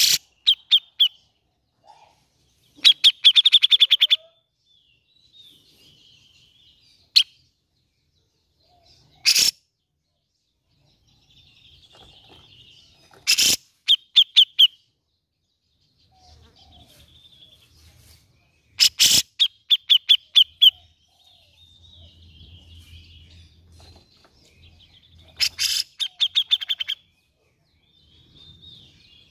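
Grey-cheeked bulbul (cucak jenggot) calling: about six loud bouts of rapid, harsh repeated notes, each lasting around a second and coming every few seconds, with softer warbling notes in between.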